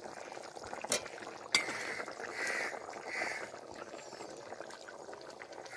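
Potato curry simmering in a metal kadai with a soft steady bubbling. Two sharp knocks come about one and one and a half seconds in.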